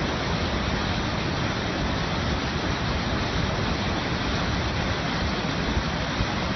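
Waterfall rushing, a loud steady roar of falling water with no change.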